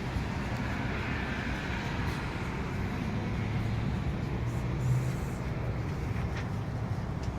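Steady low rumble of nearby road traffic, with no distinct events.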